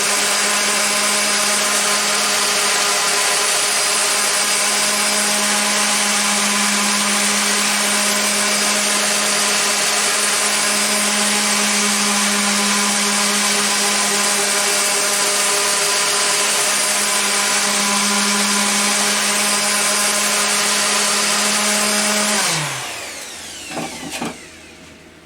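Mac Allister SOS300 300 W corded random orbital sander running at a steady speed as it sands wood with 80-grit paper. About 22 seconds in it is switched off, and its whine falls in pitch as the pad spins down.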